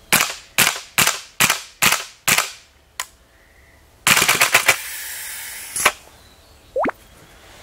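Cyber Gun gas blowback airsoft SCAR-H fires six single shots about half a second apart. About four seconds in it fires a short full-auto burst of about eight shots, followed by about a second of hissing.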